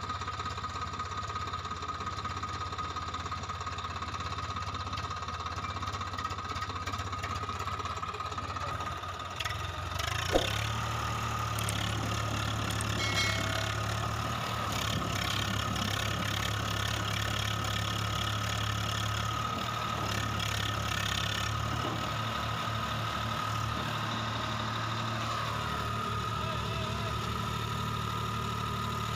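Diesel tractor engines running steadily, with the Swaraj 744 FE nearest. About ten seconds in the engine note rises and gets louder, with one sharp knock, and then holds steady.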